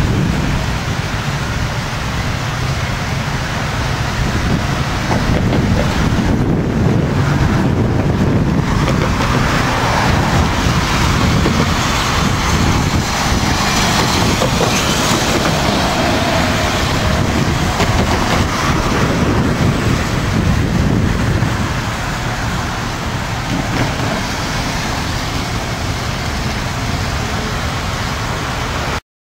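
Wind buffeting the camera microphone: a loud, unsteady rumble. From about ten to twenty seconds in, a rushing hiss rises over it. It all cuts off abruptly just before the end.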